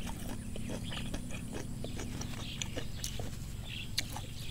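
Chewing close to the microphone: a scatter of small wet clicks and crunches over a low steady hum.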